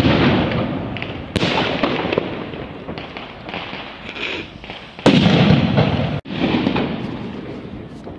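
Powerful firecrackers exploding on the ground: sharp blasts about a second and a half in, about five seconds in (the loudest) and again a second later. Each one is followed by a long echo that fades.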